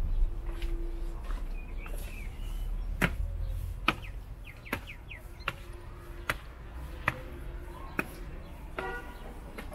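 Footsteps on stone, a steady walking pace of a little over one step a second, with birds chirping now and then.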